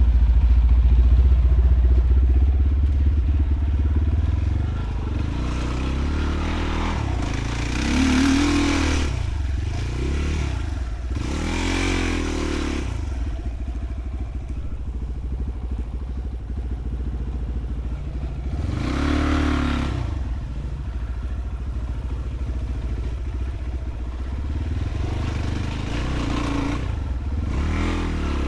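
Enduro motorcycle engine running while riding, revving up and easing off several times, most strongly about 8, 12 and 19 seconds in.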